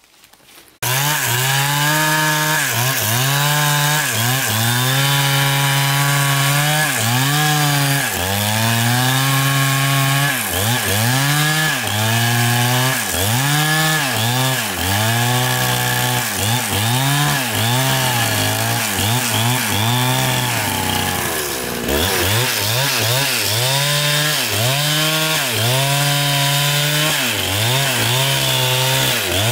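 Chainsaw cutting wood, its engine pitch dipping again and again as the chain bites and rising back between cuts. The sound starts abruptly under a second in.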